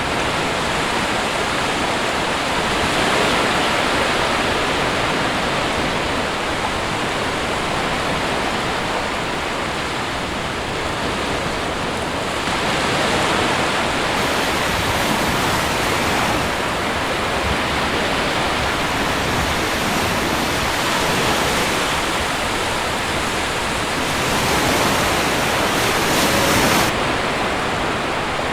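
Ocean waves breaking on a shore: a continuous rush of surf that swells a little louder every few seconds.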